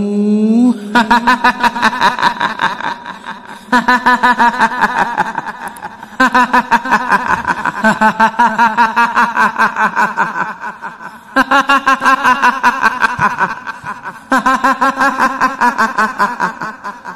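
A woman's shrill cackling laugh, the kuntilanak ghost's laugh of Indonesian horror, in five long runs of quick pulses, about five a second.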